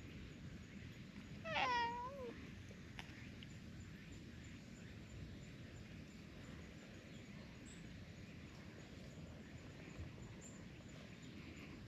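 Brown tabby cat giving one short meow about a second and a half in, dipping and then rising in pitch, over faint steady outdoor background noise.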